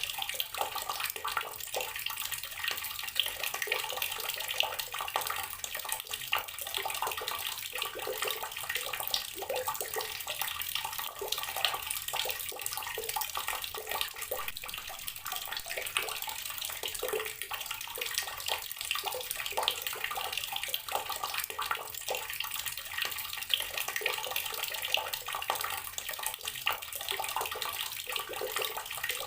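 Water running steadily from a tap and splashing, with a continuous patter of small splashes.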